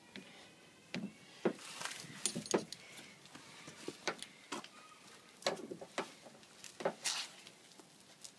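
Metal tyre snow chain (NETGEAR GIRARE GN15) being handled and pulled into place around a car tyre: irregular clinks and jangles of the chain links, with a few longer scraping rustles.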